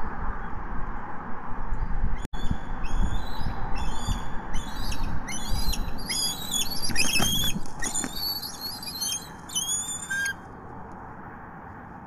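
Bald eagles calling: a rapid run of high, piping, squealing chatter notes, each stepping down in pitch, that stops abruptly about ten seconds in. Underneath is a low rumble that also dies away near the end.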